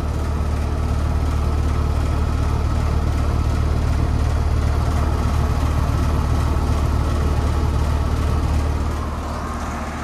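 Outdoor condenser unit of a 4-ton central air conditioner (model R4A448GKB100) running steadily: a deep compressor hum under the rush of the condenser fan. It is running normally, sounding perfect.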